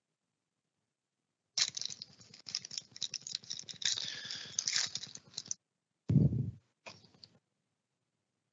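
A trading-card pack's wrapper crinkling and tearing as it is opened and the cards are worked out, a run of crackles lasting about four seconds. Then comes a single dull thump, the loudest sound, and a few light clicks.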